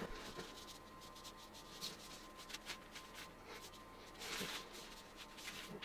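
Faint rubbing of a rag spreading citrus paint stripper over a spray-painted wooden rifle stock, with a few light ticks, and a louder swipe about four seconds in.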